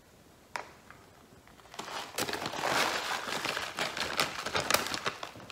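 Plastic packet crinkling and rustling as it is shaken over a baking dish, a dense run of crackles starting about two seconds in, after a single light click about half a second in.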